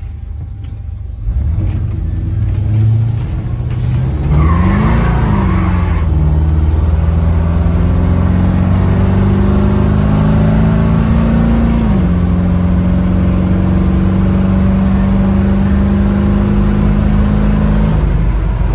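1979 Ford F-150's 460 big-block V8 accelerating, heard from inside the sound-deadened cab: the engine note climbs, drops back at a gear shift about five seconds in and again about twelve seconds in, then holds a steady pull until it changes near the end.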